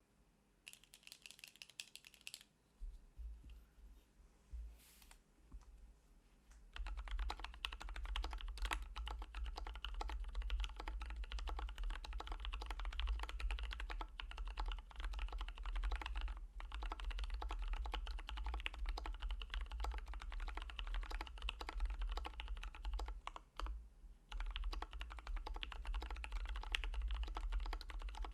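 Typing on a custom Sp-Star Lucifer Alice-layout mechanical keyboard with an aluminium plate, Bsun Holy Panda tactile switches lubed with Krytox 205g0, Durock v2 stabilizers and DCP Mitocorn keycaps. A quick run of keystrokes and a few scattered presses come first, then steady fast typing from about seven seconds in, with a short pause near the end.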